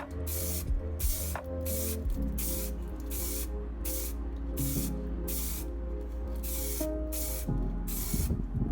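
Paint being sprayed onto a scale model car body in short hissing bursts, about two a second.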